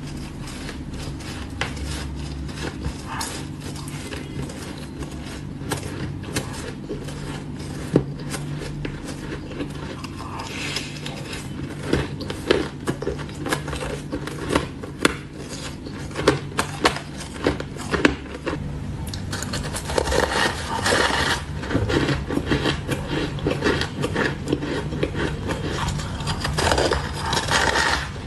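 Ice being bitten and chewed, with scattered sharp crackles and a metal spoon scraping and clinking in a steel bowl. From about two-thirds of the way through, the crunching becomes louder and denser as bites are taken from a solid block of ice.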